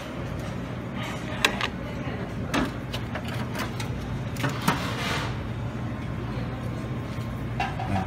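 Steady background hum of a buffet dining room, with a few sharp clinks of metal serving tongs against a steel serving pan as fried fish is lifted out, and a brief scrape near the middle.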